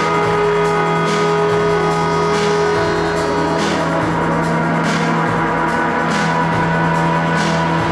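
Experimental electronic noise music: a dense wall of layered drone tones with a strong low hum, and hissing noise swells that pulse about every 1.2 seconds.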